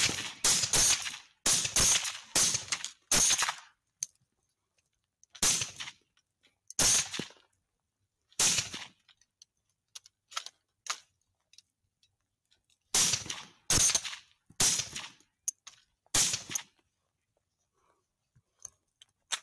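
Rifle shots from several hunters firing together. A rapid string of about eight shots comes in the first three seconds, then single shots a second or more apart. A second quick string of five or six follows a little past the middle, and a few fainter shots come near the end.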